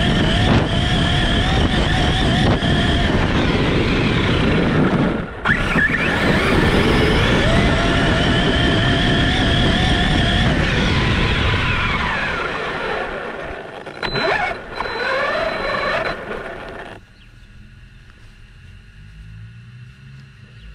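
Arrma Kraton RC truck's electric motor whining at high speed over grass during a speed run, with a heavy rush of wind and tyre noise. About five seconds in the pitch dips and climbs again. It winds down and cuts out about 17 seconds in, leaving a quiet low background.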